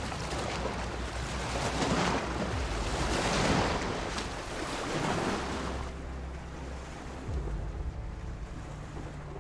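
A rushing, wind-like noise swells twice in the first half, then fades, over a low steady hum.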